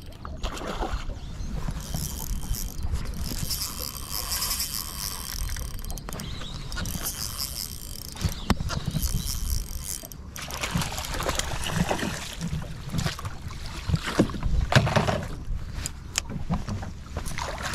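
Irregular clicks, knocks and rustling of fishing tackle and a freshly caught fish being handled in a boat, over a steady low rumble.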